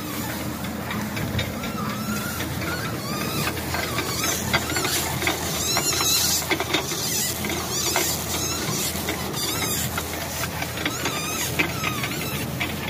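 Turntable pallet stretch wrapper running: a steady motor hum under frequent crackles and short wavering squeaks as coreless stretch film is pulled off its roll and stretched around the turning pallet.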